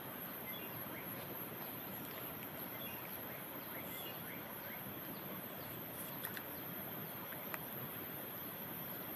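Steady, high-pitched chirring of insects over an even background hiss, with a couple of faint clicks.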